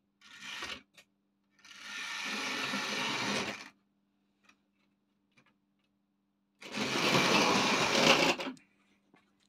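Tri-ang model tank locomotive's electric motor whirring with wheels clattering on the track, in short runs: a brief one at the start, a longer one of about two seconds, then a louder one near the end. A steady low hum sits underneath.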